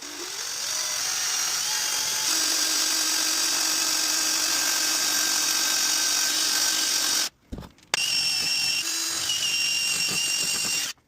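Power drill spinning up and running steadily for about seven seconds, stopping briefly, then running again for about three seconds, drilling the mounting hole for a nitrous nozzle.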